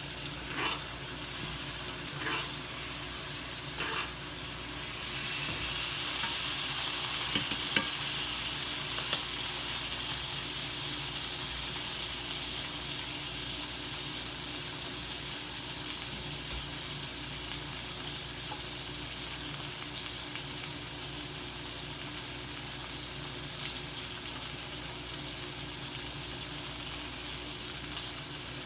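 Steaks searing in a hot skillet: a steady frying sizzle that grows a little louder about five seconds in. A few sharp ticks stand out about seven to nine seconds in.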